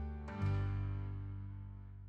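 Outro music ending: a final chord is struck about half a second in and rings out, fading away.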